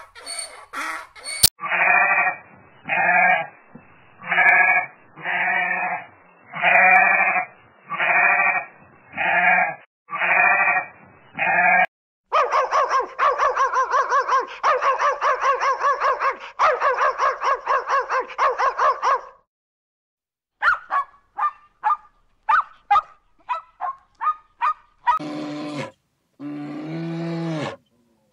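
A donkey braying in a steady run of about a dozen evenly spaced calls, followed by ducks quacking rapidly for several seconds, then scattered short animal calls and a few low calls near the end.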